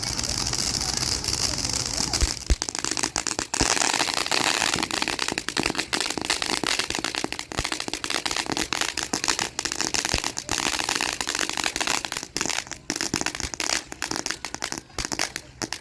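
Ground firework fountain, TNT Fireworks' Cool Breeze, in its crackling final stage: a hissing spray for the first couple of seconds, then a dense, rapid crackle that thins out near the end.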